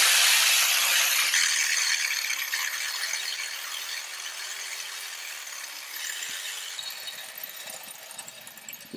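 A loud rushing hiss that starts abruptly and fades slowly, with a faint wavering hum beneath it.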